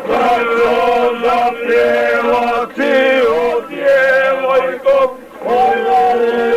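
A group of men singing a folk song together, one note held steadily under a wavering melody, with a brief pause for breath about five seconds in.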